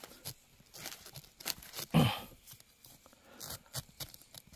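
Scattered rustling, scraping and crunching of earth and leaves being dug and handled by hand. A short low grunt with a falling pitch comes about two seconds in.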